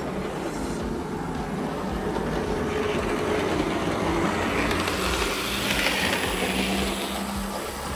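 A freshly serviced vintage Lima HO-scale BR 151 model locomotive runs along the layout track on a test run, its ringfield motor humming steadily under the noise of its wheels on the rails. The sound grows louder about halfway through as it passes close by.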